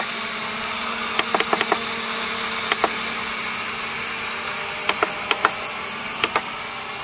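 Hubsan H502S Desire mini quadcopter hovering, its four motors and propellers giving a steady high whine. Short beeps come in ones and twos from the transmitter as its trims are pressed.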